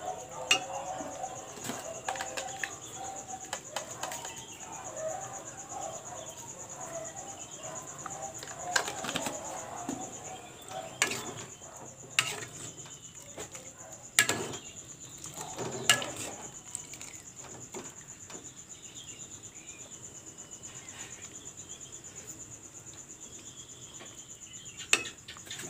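Metal ladle stirring soup in an aluminium pot, scraping and clinking sharply against the pot's side about seven times at irregular intervals. A steady high-pitched insect drone runs underneath.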